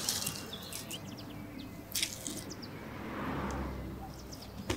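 Birds chirping in short, scattered calls over quiet outdoor background, with a soft swell of noise about three seconds in.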